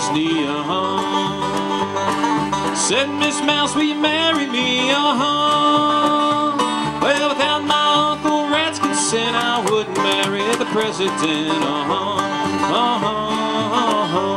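Live acoustic bluegrass music: banjo, acoustic guitar and upright bass playing together, the bass keeping a steady, even beat underneath.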